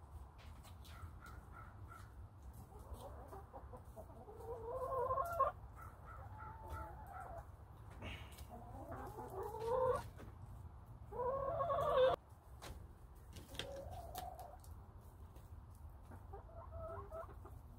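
Chickens calling, with three louder drawn-out calls that rise in pitch and break off sharply, and quieter calls between them.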